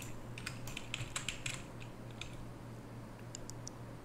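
Computer keyboard keys clicking: a quick run of taps in the first second and a half, then a few sparser, fainter clicks later on, over a faint low steady hum.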